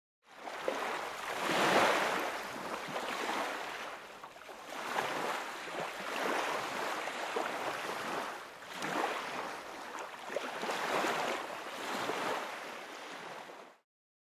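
Surf washing in, a rushing noise that swells and fades every second or two, cutting off suddenly near the end.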